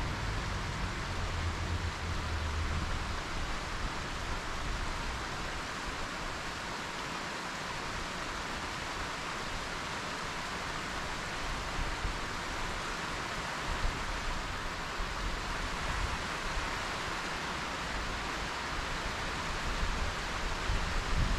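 Steady rushing wind noise on the microphone while riding an open chairlift, with low rumbling gusts in the first few seconds and again near the end.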